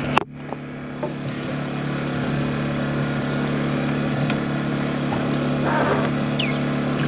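Steady drone of a generator engine running, with a sharp knock just after the start.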